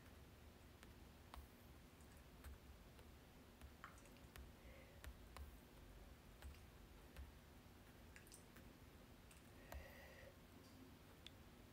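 Near silence: room tone with faint, scattered clicks.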